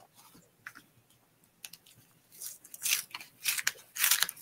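Kraft-paper envelope being handled and opened, its paper rustling in short bursts that start about halfway through and get louder near the end.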